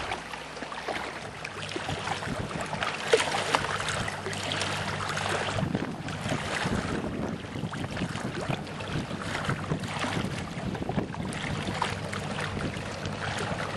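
Water rushing and splashing around a sailing dinghy's hull, with wind buffeting the microphone. A low steady hum runs underneath and fades out a little before the middle.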